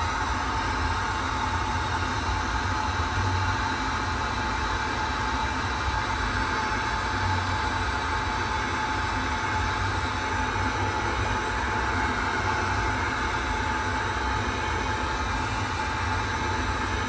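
Steady machine noise: a continuous rushing whir with a constant high whine over a low rumble.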